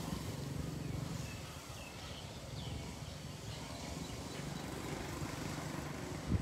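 A few short bird chirps over a steady low hum.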